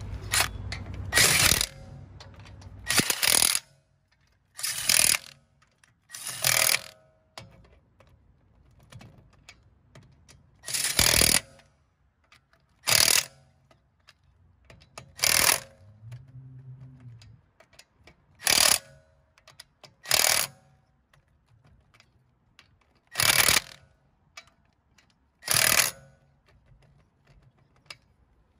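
Lug bolts being run in and tightened on a refitted car wheel with a wrench: about eleven short, loud mechanical bursts, each under a second, one to five seconds apart.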